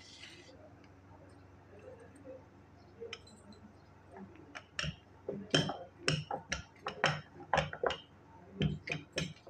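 Wooden rolling pin rolling samosa dough on a marble counter: from about halfway in, a quick, irregular run of sharp clicks and knocks.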